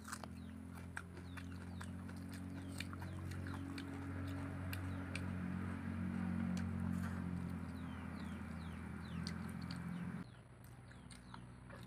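Close-up eating sounds: chewing, lip smacks and fingers squelching rice and curry gravy, heard as many small clicks, over a steady low drone that drops away about ten seconds in.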